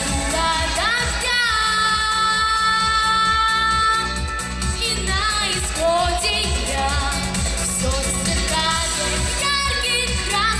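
A girl singing a pop song into a handheld microphone over a backing track with a steady beat. She holds one long note from about a second in until about four and a half seconds, then carries on with the melody.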